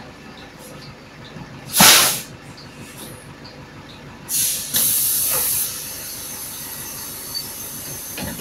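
Bursts of compressed-air hiss from a bus's pneumatic system. The first is a short, loud blast about two seconds in. A little past four seconds comes a longer release that holds for about a second, then drops to a fainter steady hiss.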